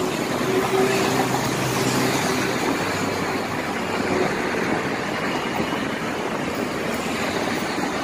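Steady road-traffic noise, with a vehicle engine running and loudest in the first few seconds.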